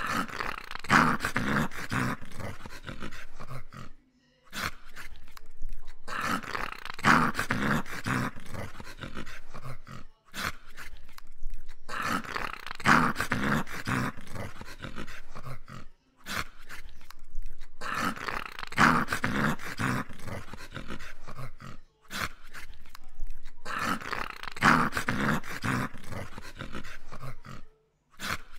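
Dog growling in long stretches of about six seconds, each broken off by a brief silence, the same pattern coming round again and again.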